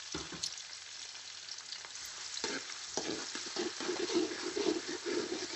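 Sliced onions sizzling in hot mustard oil in a wok. From about halfway through, a metal slotted spatula stirs them and scrapes against the pan again and again.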